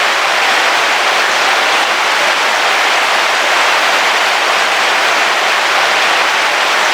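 Heavy rain falling on a car roof, heard from inside the car: a steady, even hiss with no breaks.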